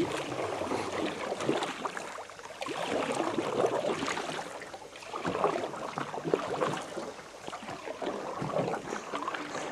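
Canoe paddle strokes dipping and splashing in calm water, in uneven swells, with a sharp knock at the very start.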